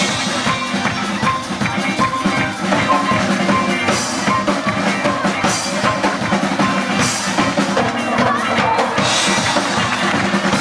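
Live band playing music, with a drum kit keeping a steady beat.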